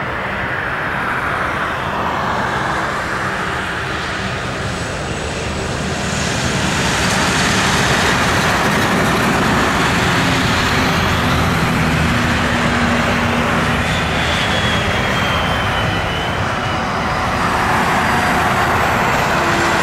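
Airbus A320 jet engines during the landing roll just after touchdown. The steady engine noise grows louder about six seconds in and stays up.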